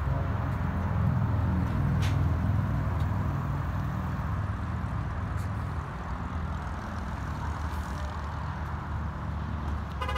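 Diesel engine of a 2024 GMC Sierra 2500 AT4X HD, the 6.6-litre Duramax, idling with a steady low rumble. A single sharp click comes about two seconds in.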